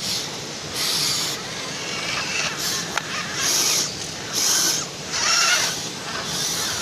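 A radio-controlled scale off-road truck driven in short throttle bursts, its electric motor whining and its wheels spinning. There are about five bursts of about half a second each, the longest near the end, and a single click about three seconds in.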